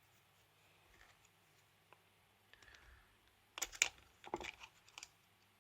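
Light clicks and taps of small tools and plastic parts being handled while a Nintendo Switch is taken apart, in two short clusters about three and a half and four and a half seconds in.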